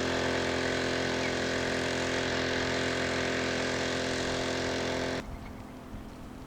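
Small fishing boat's engine running steadily at one even pitch, then cutting off abruptly about five seconds in.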